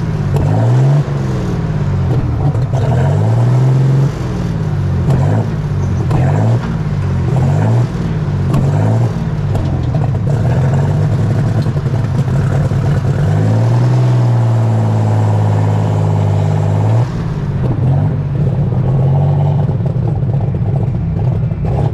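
Superstock pulling tractor's diesel engine revving up and down over and over at low speed. About two-thirds of the way through it holds one steady higher note for a few seconds, then goes back to revving.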